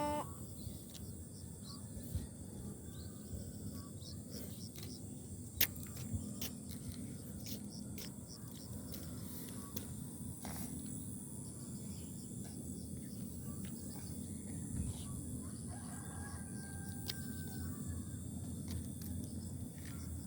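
Outdoor rural ambience: a steady high insect drone with scattered small ticks. A faint, distant rooster crow comes about three-quarters of the way through.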